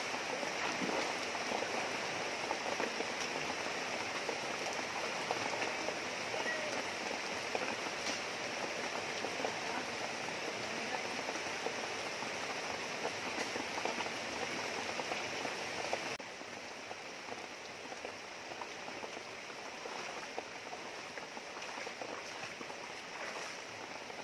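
Steady rush of a shallow river flowing over rocks. It drops a little in level suddenly about two-thirds of the way through.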